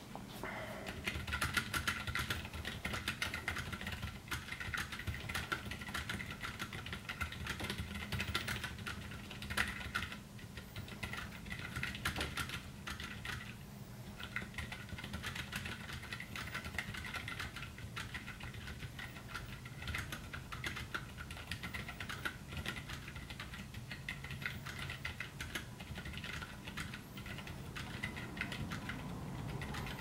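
Steady typing on a RedScarf 68 mechanical keyboard with Cherry MX Blue switches fitted with Jailhouse J-clip spacers, which take away the switches' click and shorten their travel, leaving them as tactile switches. Dense keystrokes with brief pauses about ten and thirteen seconds in.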